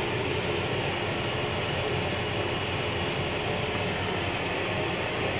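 Steady running noise of a Long Island Rail Road M9 electric railcar in motion, heard from inside the car's enclosed restroom: an even rumble and hiss with a faint low hum.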